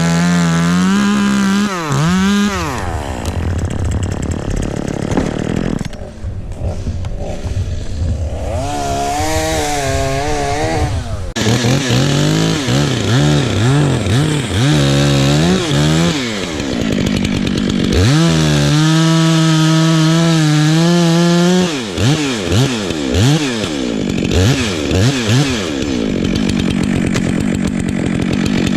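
Chainsaw cutting through ash, its engine pitch sagging under load and climbing back. It runs high and steady at times, drops back between cuts, and gives a run of quick throttle blips in the later part.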